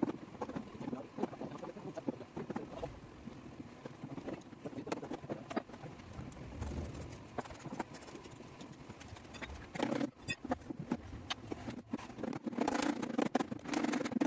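Irregular light tapping and knocking, a body hammer and dent tools working a dent out of a car's sheet-metal panel. It grows busier and louder near the end.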